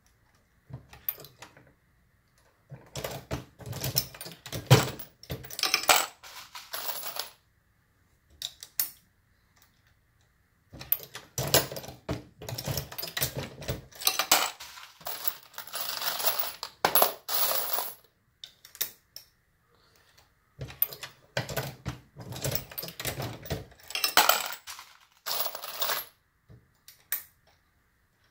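Brass .223 cartridge cases clinking and clattering as they are handled and set into a Dillon RL550B reloading press, with metallic clicks from the press. The clatter comes in runs of several seconds with short pauses between.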